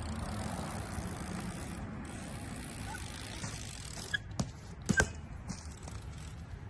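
BMX bike hitting a steel rail: a few sharp metallic clanks with a brief ring a little after four seconds in, the loudest about five seconds in, as the bike's pegs or wheels strike the rail. A steady hiss comes before them.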